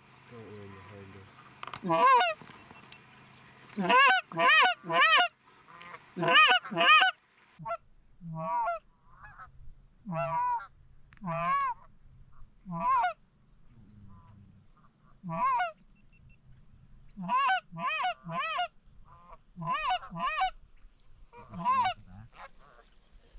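Canada goose honking, loud and close: quick groups of two or three honks early on, then single and paired honks spaced out over the rest of the stretch.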